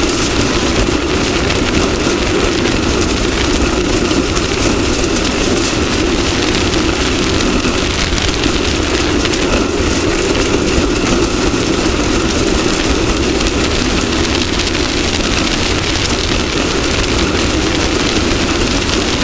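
Off-road race vehicle's engine running at steady high speed under load, mixed with a loud, even rush of noise.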